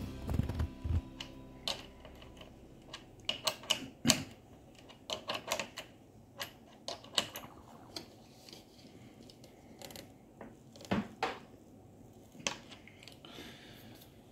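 Irregular light metallic clicks and taps of a socket driver and cable ring terminals on a LiFePO4 battery cell's terminal nut as the connections are fastened back on.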